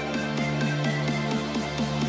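Background music: an electronic instrumental with a held bass note under a quick repeating figure of about six notes a second.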